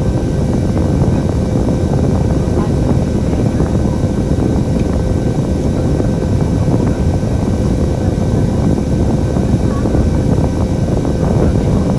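Bus running on the road: a steady low engine and road rumble with a faint constant whine.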